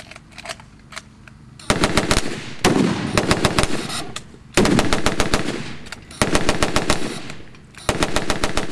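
Machine gun firing in five short bursts of rapid shots, about ten a second, with brief gaps between them; the first burst starts nearly two seconds in.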